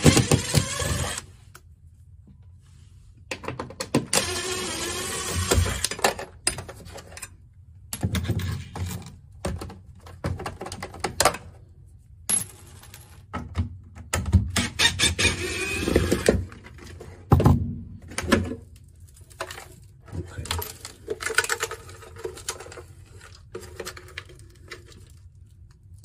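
A cordless power driver backing out the screws that hold a dryer vent periscope to the wall, its motor whining in about five separate runs of one to three seconds each. Sharp metallic clinks and rattles of loose screws and metal parts fall between the runs.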